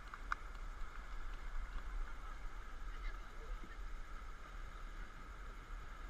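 River water rushing over shallow rapids as a steady hiss, over a constant low rumble. A couple of light clicks come in the first half second.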